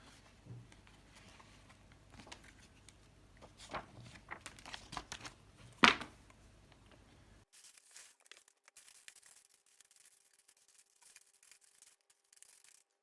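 Faint crinkling and rustling of the set's plastic parts bags being handled, with scattered short clicks and one sharper click about six seconds in.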